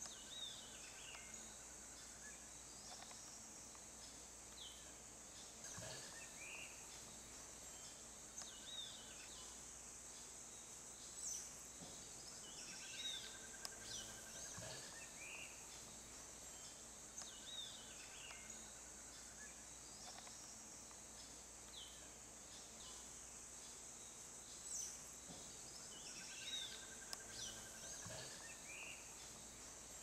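Faint forest ambience: a steady high insect hum with birds calling over it, one bird repeating a short phrase of chirps every few seconds, with occasional brief trills.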